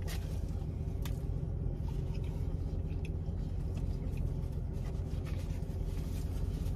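Steady low hum of a running car heard from inside the cabin, with faint chewing and a few soft clicks as two people eat sandwiches.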